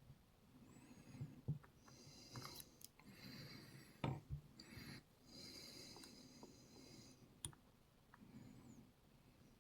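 Faint scraping and light clicks of picking tools working inside a Rav Bariach RB500 dimple lock, with a sharper click about four seconds in and another about seven and a half seconds in.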